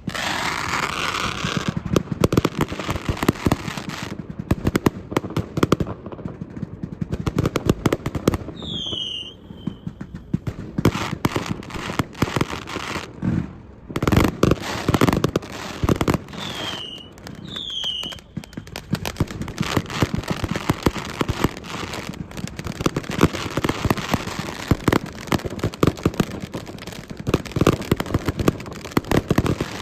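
Strings of firecrackers going off in a dense, continuous rattle of rapid sharp pops, easing briefly a couple of times. A few short high falling whistles sound in the middle.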